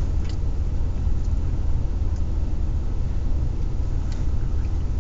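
Car engine idling, heard from inside the cabin as a steady low rumble, with a couple of faint clicks over it.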